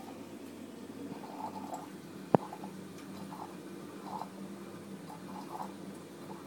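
Water in a siphon coffee maker bubbling and gurgling softly and irregularly as large bubbles rise into the upper chamber, over a steady low rush. A single sharp click about two seconds in.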